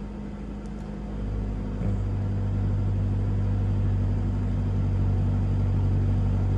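Toyota Innova engine running with the AC switched on, a steady low hum. About two seconds in the hum steps up and gets louder and then holds: the change in engine note as the AC compressor clutch engages again after cutting off.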